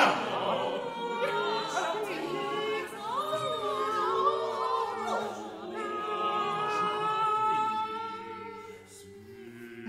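Unaccompanied vocal sextet singing contemporary art music. Several voices hold overlapping sustained pitches and slide slowly between some of them. The sound fades toward the end.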